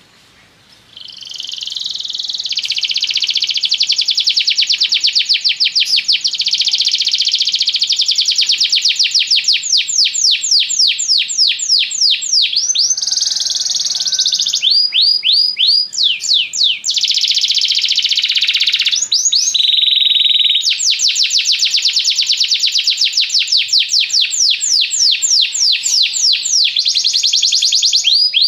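Domestic canary singing a long, loud song of rapid trills of repeated notes. It starts about a second in and runs on with only a couple of brief pauses.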